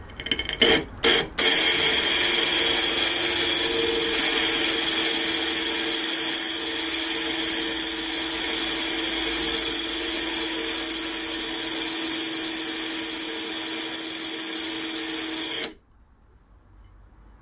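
Electric drill fitted with a diamond-tipped cutter, grinding into glass: a few short trigger blips, then running steadily for about fourteen seconds before stopping suddenly near the end.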